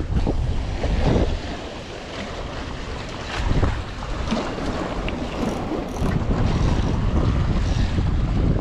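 Wind buffeting the microphone over waves washing and splashing against granite jetty rocks, swelling louder about a second in and again around three and a half seconds.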